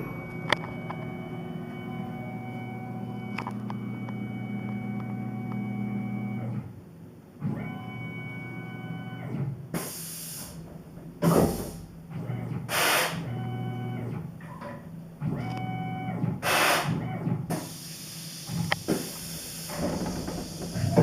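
Tormach PCNC 1100 CNC mill at work milling and drilling MIC6 aluminium tool plate. A steady machine whine stops about six and a half seconds in, then comes back in short starts and stops between several loud, short hissing bursts.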